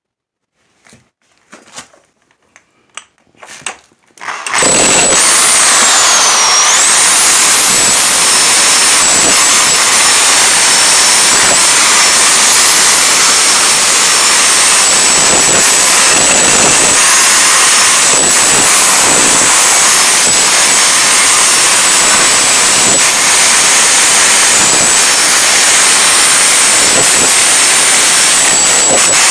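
A few faint clicks, then about four seconds in a Bauer 10.5 amp electric rotary hammer starts up and runs continuously, chiselling and breaking concrete. Its motor whines high over a loud, steady din of hammering.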